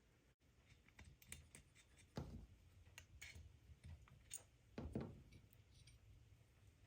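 Faint clicks and light knocks of small metal parts being handled as a clutch is set onto a small two-stroke engine, with two slightly louder knocks about two and five seconds in.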